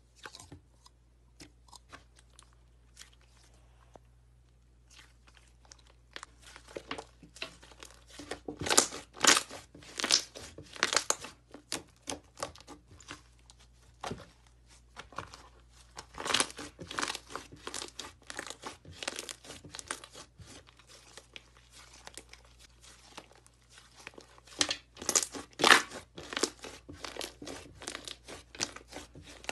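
Thick white slime being pulled, stretched and squeezed by hand, giving off rapid sticky crackles and pops. The crackling is sparse for the first few seconds, then thick, with louder spells about a third of the way in and again near the end.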